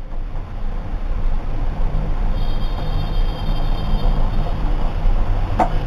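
Milk tea boiling hard in a pan over a high gas flame, a steady rumbling noise, with a single short knock near the end.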